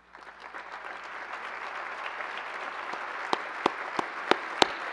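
Audience applause that swells steadily, joined from about three seconds in by loud, sharp hand claps close to the microphone, about three a second, from the man at the lectern clapping along.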